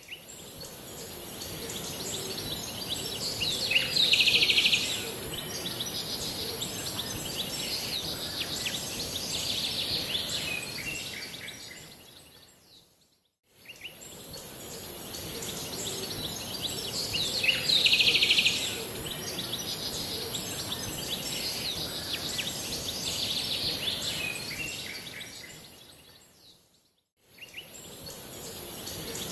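Outdoor ambience of birds chirping over a steady high hiss, a loop of about thirteen seconds that fades out and back in twice. A burst of rapid chirping comes about four seconds in and again about eighteen seconds in.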